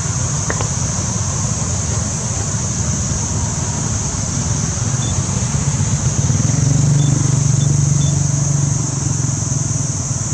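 Low, steady motor-vehicle engine rumble that grows louder for a few seconds past the middle, then eases off, over a constant high-pitched hiss.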